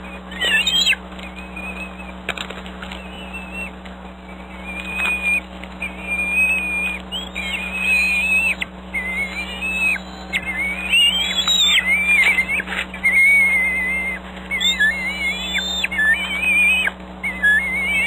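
Bald eagle nestlings giving high, wavering whistled begging calls at a meal. The calls come a few seconds apart at first and almost without a break in the second half, over a steady low hum.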